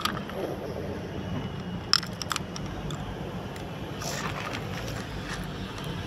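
Steady low outdoor rumble, with a few sharp clicks and crunches of gravel and plastic as a toy tractor and its loaded trolley are moved over stony ground. The loudest clicks come about two seconds in.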